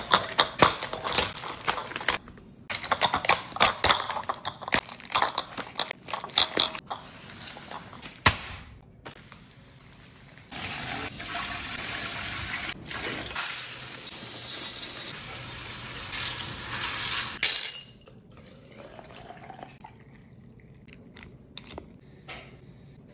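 Glass canning jars clattering and plastic wrap crinkling as a case of new jars is unpacked. About ten seconds in, water starts pouring in a steady stream into an aluminium pressure canner and runs for about seven seconds before it cuts off. Near the end come a few faint clinks of a metal measuring spoon at the jars.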